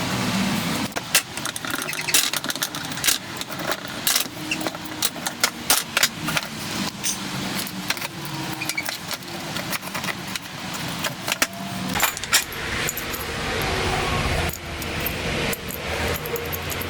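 Many quick metallic clinks and rattles, like small metal hardware being handled, over steady workshop noise. A low hum comes in about three-quarters of the way through.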